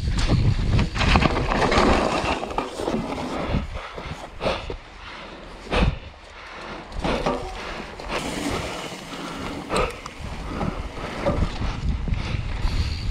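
Mountain bike rolling fast down a dry dirt trail: steady tyre noise over the dirt, broken by several sharp knocks as the bike hits bumps, the loudest about six seconds in.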